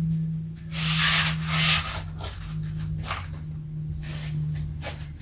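Foam blocks rubbing and scraping as they are stacked into a platform: one long rub about a second in, then a few short scuffs.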